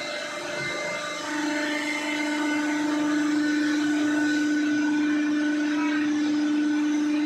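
Hydraulic cardboard baling press's electric motor and pump running with a steady hum. The hum weakens briefly near the start, then holds steady.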